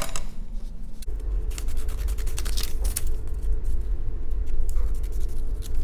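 Scissors cutting through a folded sheet of paper: a run of quick snips and slicing, over a steady low hum.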